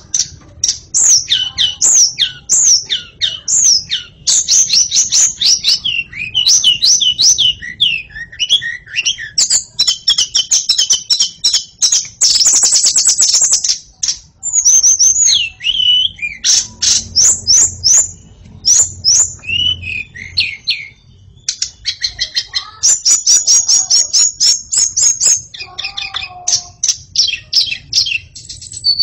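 White-rumped shama singing nonstop: a fast, varied string of whistled and chattering phrases with a dense, harsh rattle about halfway through.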